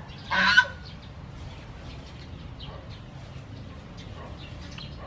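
A single short, loud squawk from a bird about half a second in, over faint scattered chirping of small birds.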